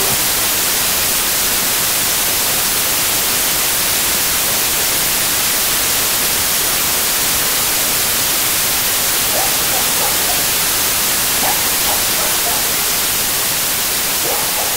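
Loud, steady static-like hiss, strongest in the high end, with faint voices coming through about ten seconds in and again near the end.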